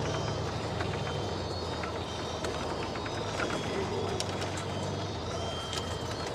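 Steady engine and road noise heard from inside a moving vehicle, a low hum under a wash of noise, with scattered light clicks and rattles.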